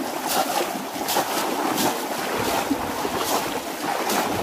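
Bamboo polo fish traps repeatedly plunged into shallow water: a quick series of splashes, about one or two a second, over a continuous sloshing of churned water.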